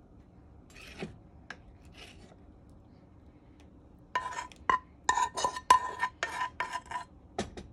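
Metal spoon scraping a pan to get the last of the candied-yam sauce out: a couple of faint scrapes, then from about four seconds in a quick run of rasping strokes with a ringing metal tone.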